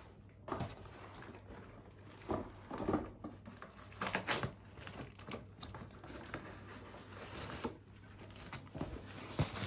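Intermittent rustling and knocking of packaging as a cardboard box is opened and its foam-wrapped contents are handled, in short irregular bursts.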